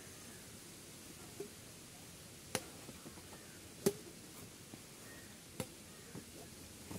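Badminton rackets striking a shuttlecock back and forth in a rally. A string of sharp, short hits comes about every one to one and a half seconds, and the loudest is an overhead shot about four seconds in.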